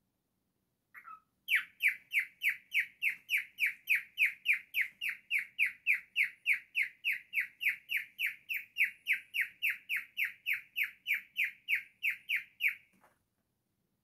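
Cockatiel calling a long, fast run of identical falling chirps, about three or four a second, for roughly eleven seconds before stopping abruptly.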